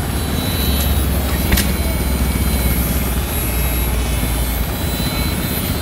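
An engine running steadily with a low, even rumble.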